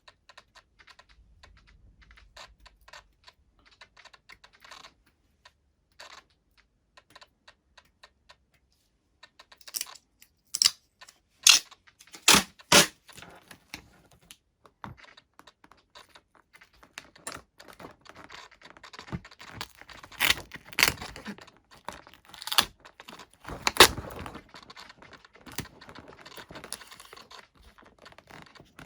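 Hands working a roll of tape on the plane: small scattered clicks and taps as the tape end is lifted and handled, a few sharp clicks about ten to thirteen seconds in, then a busier stretch of crackly clicking and rustling as tape is pulled off and pressed down.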